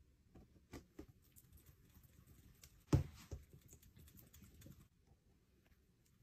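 Palette knife scraping and tapping thick paint on a palette: soft clicks and scrapes, with two sharper knocks about three seconds in.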